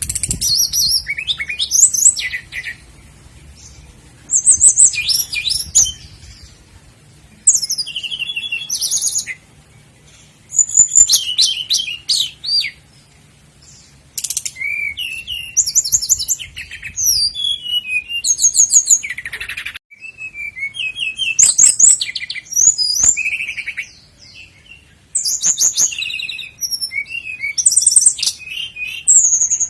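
Common nightingale singing: a run of about eight loud, varied phrases of rapid trills, clear whistles and fast repeated notes, each a few seconds long and split by short pauses.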